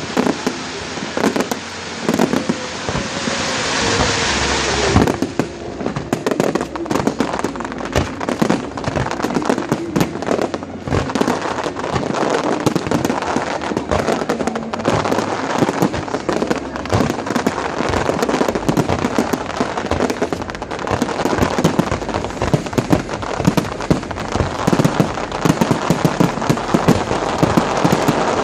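Fireworks display: a dense, continuous run of cracks and bangs from exploding shells. A hissing stretch comes about three to five seconds in.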